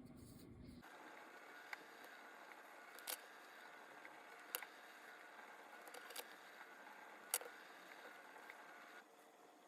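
Near-silent workbench with about five faint, sharp clicks of small metal watchmaker's tools on the parts of an Omega cal.1012 movement being disassembled.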